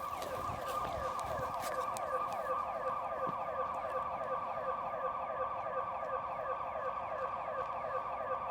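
Building security alarm siren sounding, triggered by motion detectors: a fast series of falling sweeps, several a second, over a steady high tone.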